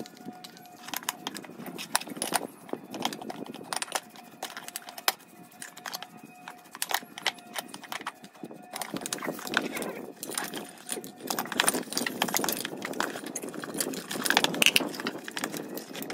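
Paintbrush bristles scrubbing greasy metal car parts in a plastic basin of cleaning liquid, with frequent clinks and knocks as the metal parts are handled against each other and the basin. The scrubbing grows busier about halfway through.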